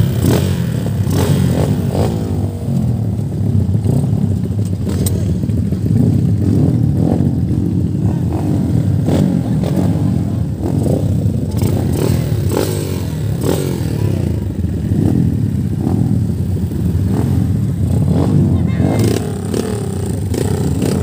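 Underbone motorcycle engines running steadily, with scattered sharp clicks and knocks over the engine sound.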